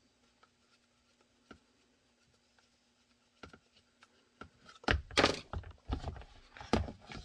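A few faint clicks of a hex key working a screw in a Kydex holster. From about five seconds in come loud rustling and rubbing as a microfiber towel is worked over the holster, with handling knocks.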